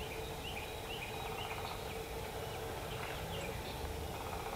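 Faint, scattered bird chirps over a steady low background hiss.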